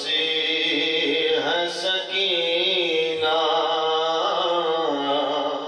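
A man reciting an Urdu noha, a Shia lament, in long, drawn-out melodic lines, sung into a handheld microphone. The line trails off near the end.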